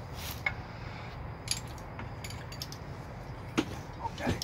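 Scattered light metallic clinks and taps from the engine hoist and floor jack being worked, heard as a handful of short ticks over a steady low hum.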